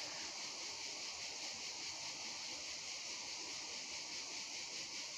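Steady high-pitched chorus of insects, crickets, keeping up an even hiss with no break.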